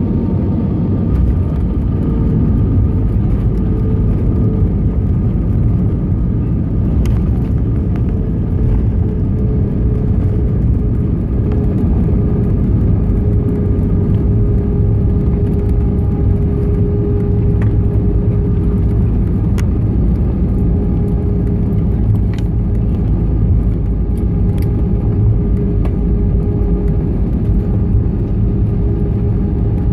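Cabin noise of a jet airliner landing and rolling out on the runway: a loud, steady rumble from the engines and wheels with a steady whine over it. The wing spoilers are raised for the landing roll.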